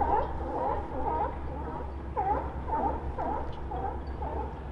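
A group of sea lions barking over and over, many overlapping barks, about two or three a second, each dipping and rising in pitch.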